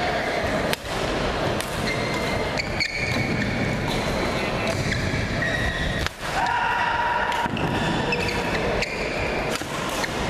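Badminton rally: sharp racket strikes on the shuttlecock every second or two, with sneakers squeaking briefly on the court floor between them, over a steady hall hum and spectator chatter.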